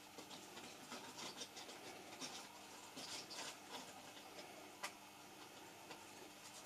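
Faint handling noise of hands holding a plastic syringe: soft rustles and small ticks, with one sharper click about five seconds in.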